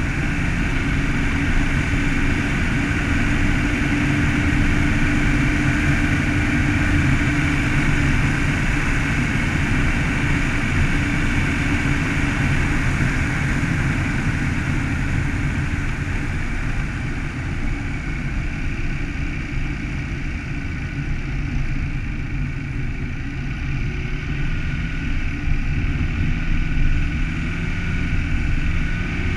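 Car driving at a steady speed: the engine runs with a continuous low hum, mixed with tyre and road noise. The higher hiss eases off somewhat in the second half.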